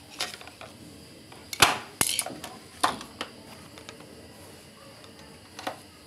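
Sharp plastic clicks and knocks from a Samsung washer-dryer's plastic control-board housing being handled and pried at with a flat-head screwdriver. A cluster of clicks comes between about one and a half and three seconds in, with one more near the end.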